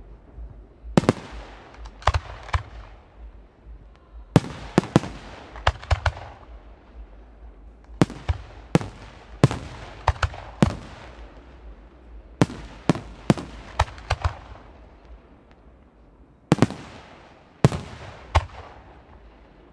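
Aerial firework shells bursting overhead: a rapid, irregular series of sharp bangs, many in quick pairs and clusters, each trailing off in a rolling echo.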